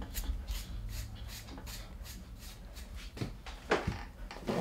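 Airedale terrier's wiry coat being hand-stripped: quick rasping pulls of hair, about three a second, with a few louder short knocks near the end.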